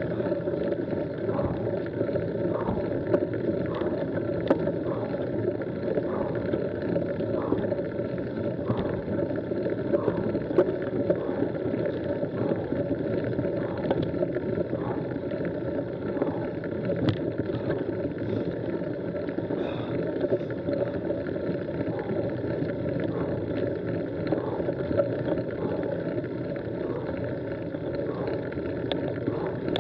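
Mountain bike climbing slowly on a gravel track: a steady, dull rumble of tyres on gravel and drivetrain, with faint regular ticks less than a second apart.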